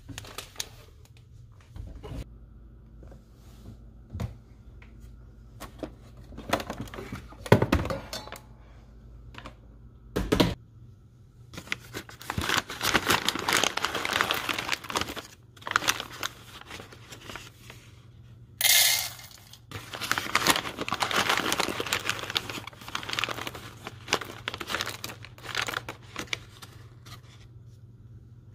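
A foil-lined coffee bean bag being crinkled, rustled and torn open by hand, in irregular bouts with a few short, sharp rips. A steady low hum runs underneath.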